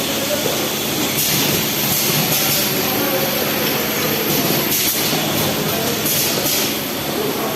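Fully automatic perfume filling machine running: a steady mechanical rattle, with short bursts of high hiss every second or two.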